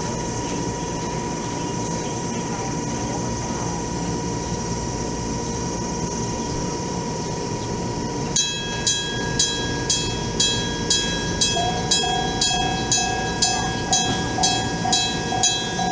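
Steady mechanical hum. About eight seconds in, an old Nippon Signal EG1003 electric level-crossing bell (AC 100 V) starts ringing, struck about twice a second, and a lower pulsing tone joins a few seconds later.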